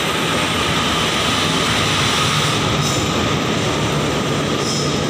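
WAP-4 electric locomotive and its passenger coaches running through the station at speed: a loud, steady rush of wheels on rails.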